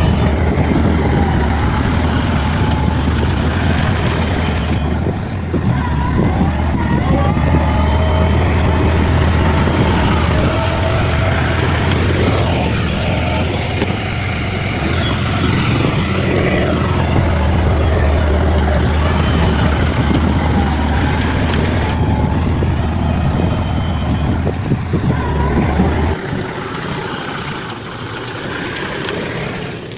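Bulldozer's diesel engine running with a steady low drone, which drops out about 26 seconds in.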